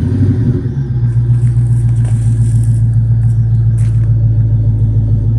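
Dodge Challenger SRT8's Hemi V8 idling through a Borla S-Type exhaust just after a start, a steady deep rumble that settles from the start-up flare within the first second.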